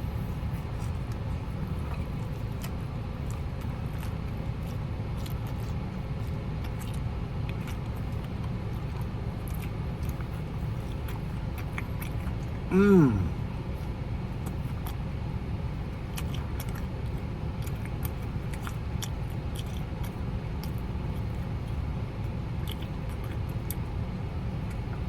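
Helicopter overhead: a steady low rotor drone throughout. Faint clicks of chewing are scattered through it, and a short falling hum of a voice comes about halfway through.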